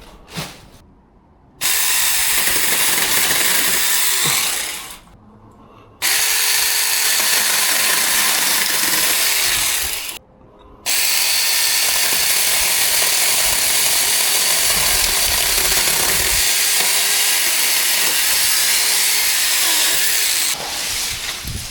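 Seesii 6-inch cordless mini chainsaw with an 800-watt electric motor, running in three long bursts of about three, four and ten seconds, cutting thin lemon-tree branches. Its motor tone wavers as the chain bites into the wood.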